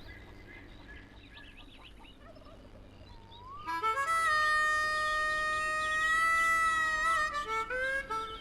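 A musical instrument plays one long held note that comes in a little under four seconds in after faint background sound, then moves through a few short notes near the end.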